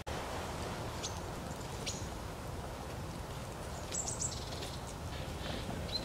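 A few short, high chirps from small woodland birds such as tits and nuthatches, including a quick cluster about two-thirds of the way through, over a steady low outdoor rumble.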